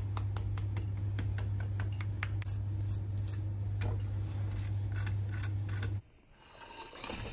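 A metal fork tapping and scraping on crisp, deep-fried coated chicken drumsticks and a ceramic plate: a run of sharp, irregular clicks and crunches over a steady low hum. Near the end the clicks and the hum stop abruptly and the sound drops away.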